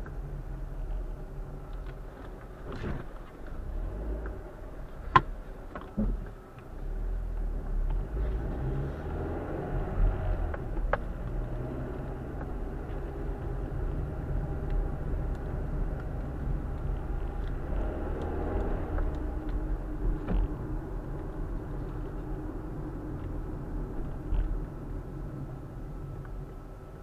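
Car driving, heard from inside the cabin: a steady low rumble of road and engine noise, with the engine note rising and falling a couple of times as the car slows and picks up speed. A few sharp clicks cut through, the loudest about five seconds in.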